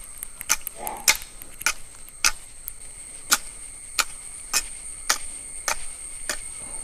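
Metal head of a long-handled garden hoe striking and scraping through gritty, stony soil in a steady rhythm of about two strokes a second, working wood ash into a raised bed.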